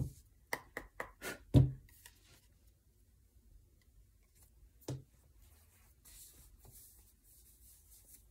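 Oracle cards being handled on the reading table: a quick run of about six light taps and knocks in the first two seconds, one more about five seconds in, then a faint rustle.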